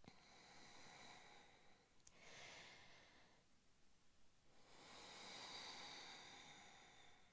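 A woman's slow, faint breathing: a short breath about two seconds in, then a longer, louder one from about four and a half seconds to near the end.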